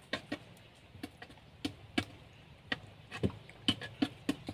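Irregular sharp clicks and soft wet knocks, a few a second, from an arm groping through wet mud and roots inside a mud-crab burrow.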